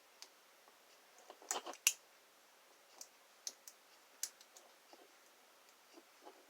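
Small, irregular metallic clicks of lock picks working the pins of an American Lock 1305 series padlock, with a brief cluster of louder clicks about one and a half seconds in.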